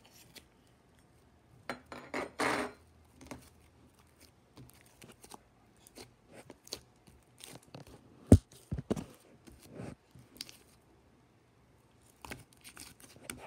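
Blue slime squeezed and stretched by hand, giving scattered sticky clicks and crackles, with a louder squelch about two and a half seconds in and a sharp pop about eight seconds in.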